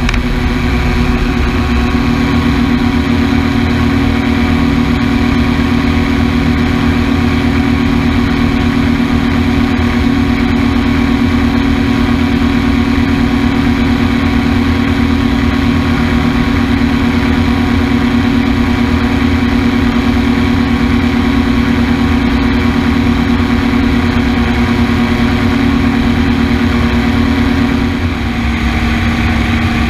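An engine running at a steady speed, its note shifting slightly near the end.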